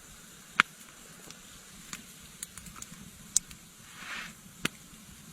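Campfire crackling quietly: a faint steady hiss broken by scattered sharp pops, the loudest about half a second in, and a brief soft rush a little past the middle.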